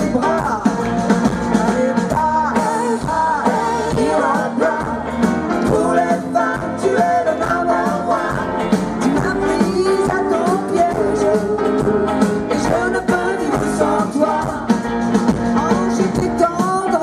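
Live pop-rock band music: electric guitars and a drum kit playing, with singing over it.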